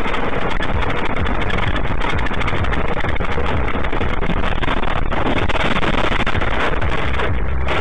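Loud, steady engine and road noise of a car driving, picked up by a dashcam microphone inside the car, heavy in the low end and harsh.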